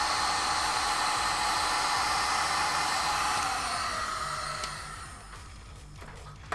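Electric heat gun blowing hot air steadily to shrink heat-shrink tubing over a soldered wire splice. About four seconds in it is switched off and its fan winds down with a falling whine.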